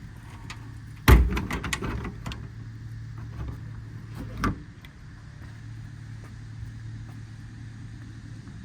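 A metal service-body compartment door shut with a loud bang about a second in, followed by a short run of clicks and rattles, then a second knock a few seconds later, over a steady low hum.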